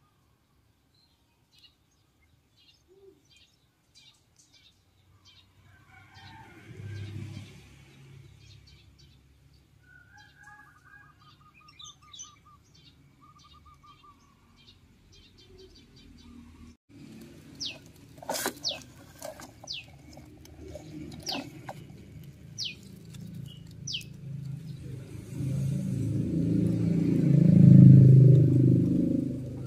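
Small birds chirping and calling: many quick high chirps, a short trill, then a run of about six quick falling whistles. A low rumble builds underneath and is loudest near the end.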